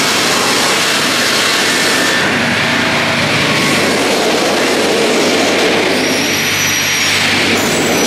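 StrojCAD D9 double-bladed circular sawmill sawing a spruce log as the carriages feed it past the two saw blades: a loud, steady rush of sawing noise over a low motor hum. The high hiss of the cut shifts about two seconds in and again near the end.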